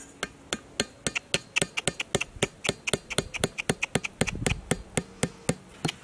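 Quick, even taps of a hatchet's back driving bamboo stakes into packed dirt, about four strikes a second.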